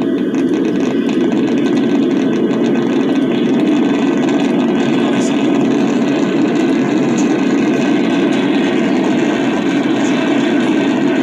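Norfolk Southern freight train's diesel locomotives running, a steady, loud engine rumble heard through computer speakers from a trackside webcam feed.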